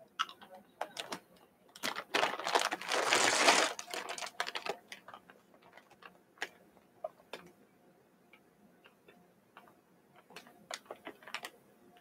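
Chewing a jelly bean close to the microphone: irregular sticky clicks and crunches, with a louder, denser stretch about two to four seconds in and a few more clicks near the end.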